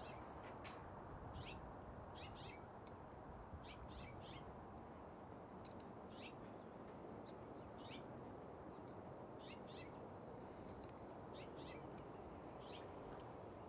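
Faint, short bird chirps, repeated every second or two, some in quick pairs, over a steady low background hiss.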